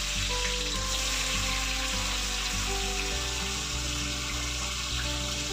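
Chopped onions frying in hot oil in a steel kadai, a steady sizzle, under background music with a low repeating bass line.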